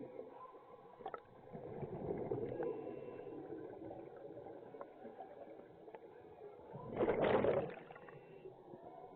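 Scuba diver breathing underwater through a regulator: a low, steady bubbling, with a loud rush of exhaled bubbles about seven seconds in and a few faint clicks.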